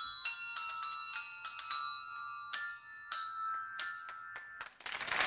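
A tune played on small tuned bells fixed to a suit worn by the player, struck one note at a time, about two or three notes a second, each note ringing on. The notes slow and stop, and applause with voices comes in right at the end.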